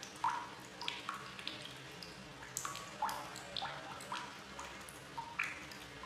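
Water drops falling into water: irregular plinks, several a second, each a short note that glides upward in pitch, over a faint steady hiss.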